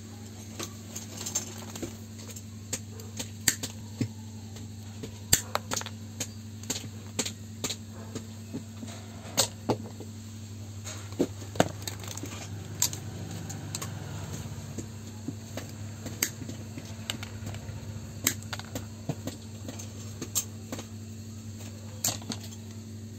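Sharp, irregular metallic clicks and clinks of steel hand tools such as pliers being handled, over a steady low hum.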